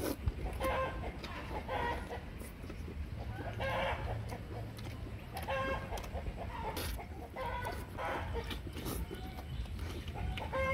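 Chickens clucking in short repeated calls, with close chewing and mouth noises from eating.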